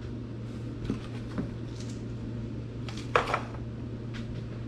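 Packaged food pouches being handled and sorted, with light rustles and taps and one louder handling noise about three seconds in, over a steady low hum.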